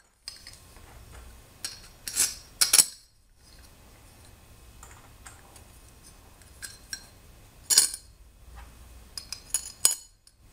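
Steel M5 bolts clinking against a metal spacer plate and each other as they are picked up and pushed through its holes: scattered sharp metallic clicks, loudest at two to three seconds in and again near eight seconds, with a quick run of clicks near the end.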